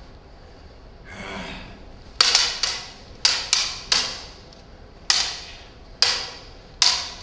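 Lightsaber blades of LED-lit plastic tubes clashing in a sparring duel. From about two seconds in come about ten sharp knocks, singly and in quick pairs, each ringing briefly in the large hall.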